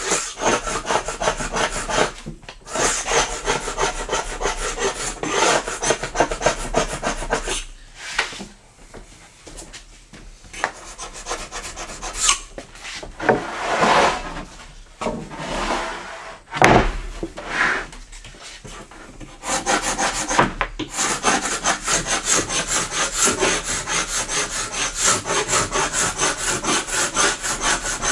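Glue scraper scraping not-yet-hardened glue squeeze-out off the glue joint of a wood panel in quick repeated strokes, about three a second at its busiest. There are short pauses, and the strokes are lighter for a few seconds about eight seconds in.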